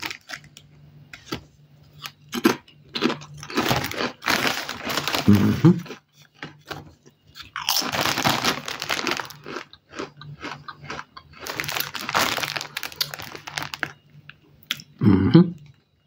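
Lay's barbecue-flavour potato chips being crunched and chewed in the mouth, in irregular bursts of crunching with short pauses between.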